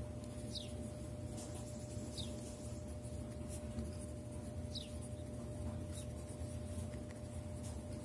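Pen writing on ruled notebook paper: faint scratching of the nib along the lines over a steady low hum, with a few short, high, falling chirps in between.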